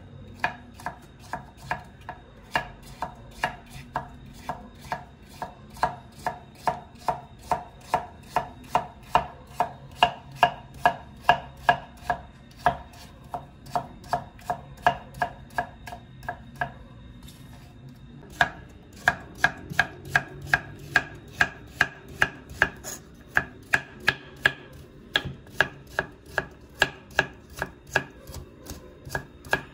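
Kitchen knife chopping raw pumpkin into cubes on a wooden cutting board: steady, evenly spaced knocks of the blade on the board, about two a second, stopping for a second or so past the middle, then carrying on.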